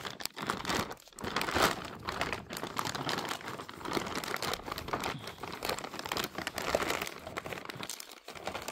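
Thin clear plastic bag crinkling and rustling as it is unfolded and pulled open by hand, in irregular spells with short pauses.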